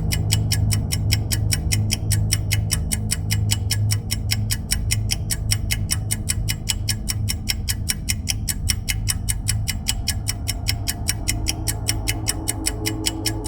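Background music built on a fast, even ticking beat over a steady low drone.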